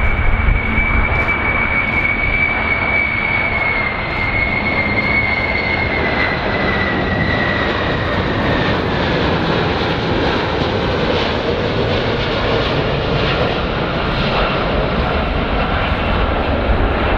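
The four General Electric CF6 turbofan engines of a Boeing 747 (the VC-25A) running on a low landing approach. A steady rushing jet noise carries a high whine that slowly slides down in pitch a few seconds in, as the plane passes.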